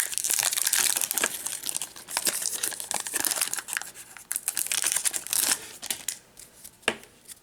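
Plastic wrapper of a baseball card pack being torn open and crinkled, a dense crackling that dies down after about five and a half seconds, with one sharp click near the end.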